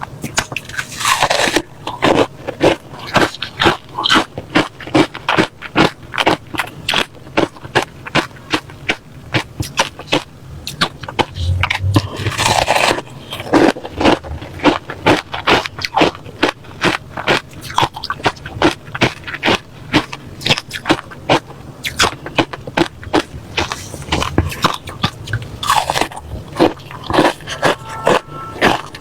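Refrozen crushed ice being bitten and chewed close to the microphone, a steady run of sharp crunches with a few longer crackling bites.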